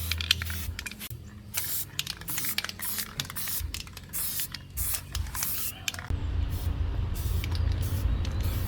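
Repeated short hissing spray bursts, then a motor starts up about six seconds in and runs with a steady low hum.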